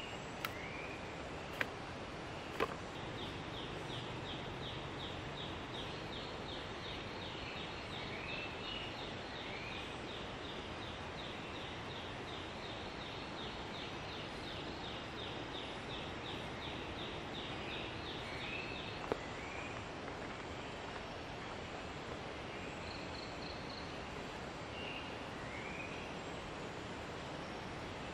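Outdoor ambience: a steady background hiss with a bird repeating short rising chirps every few seconds. A long, fast train of high ticking calls runs from a few seconds in until past the middle. A few sharp clicks come near the start and once more about two-thirds through.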